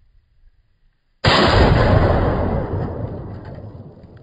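A single loud blast about a second in: a .308 rifle round striking a steel target and setting off a balloon of hydrogen-oxygen (HHO) gas behind it, the shot and the gas explosion merged into one bang. The blast fades slowly over the next few seconds.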